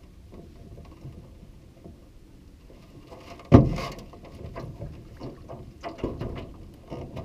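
A small boat's hull bumping against a rocky shore, with one hard thump about halfway through and then several lighter knocks and scuffs as a man shifts his feet on the bow deck.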